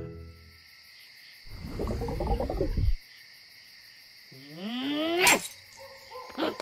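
Cartoon night ambience of steady cricket chirping. A low rumbling sound comes about a second and a half in. Near the end a rising pitched glide ends in a sharp hit, the loudest moment, with another short hit just after.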